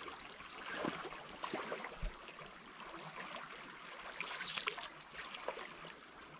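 Moving river water lapping and trickling, with many small irregular splashes and ticks.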